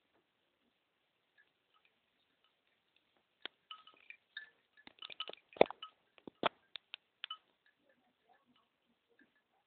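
Nokia X2-02 mobile phone giving a scatter of short, high, chime-like notes mixed with sharp clicks, starting about three and a half seconds in and lasting about four seconds. Recorded through another phone's microphone, which leaves the sound thin, with no high treble.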